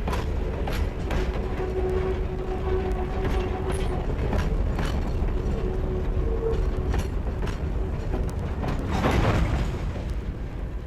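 Railroad train running on the track: a heavy steady rumble with scattered clicks of wheels over rail joints. About nine seconds in there is a louder rushing surge.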